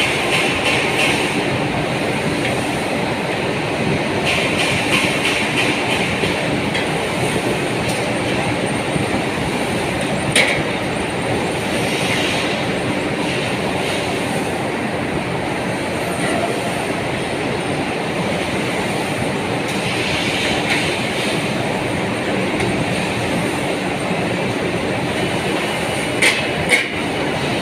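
CNC bending machine running, a steady mechanical rattle and clatter with a sharp click about ten seconds in and two more close together near the end.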